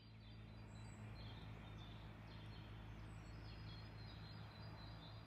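Faint birdsong: short, scattered high chirps and whistles over a steady low hum.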